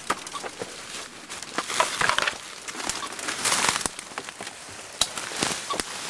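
Footsteps in dry leaf litter and branches brushing and snapping as people push through dense forest undergrowth: irregular rustling and crackling, with louder patches about two seconds and three and a half seconds in.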